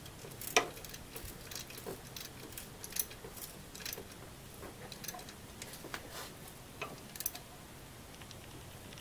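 A wrench clicking and clinking on the alternator pivot bolt as it is tightened to lock the serpentine belt's tension: irregular, sharp metal clicks a few times a second, dying away in the last second.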